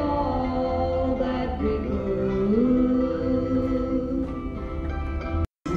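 Music with singing voices over instrumental accompaniment, from a theme-park attraction's soundtrack. It cuts out completely for a split second near the end.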